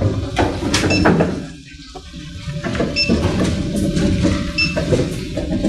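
Motorized observatory dome rotating: a steady mechanical rumble with knocks, dipping briefly about a second and a half in, with short high beeps about every two seconds.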